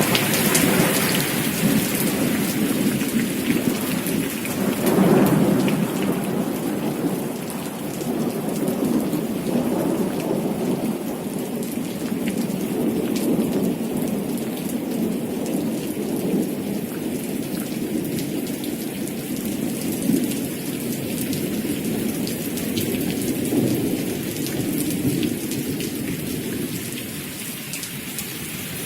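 Thunderstorm sound effect: heavy rain hissing and pattering steadily, with a rumble of thunder swelling to its loudest about five seconds in.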